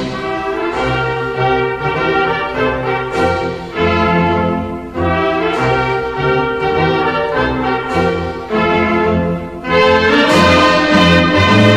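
Orchestral band music led by brass (trumpets and trombones) playing held chords that change about once a second, swelling louder near the end. It is a national anthem played instrumentally.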